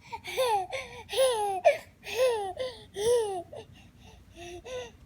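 A baby vocalizing: a string of short high-pitched squeals and coos, each rising then falling in pitch, between laughing and fussing.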